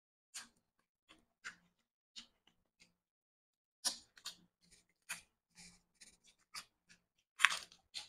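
Close-miked mouth sounds of a person eating chicken afritada by hand: chewing with wet lip smacks and clicks. These are sparse at first, busier from about halfway, with the loudest smack near the end.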